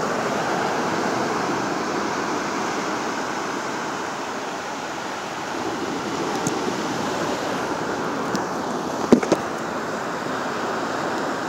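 Steady rushing wash of surf on a beach, with a couple of sharp clicks about eight and nine seconds in.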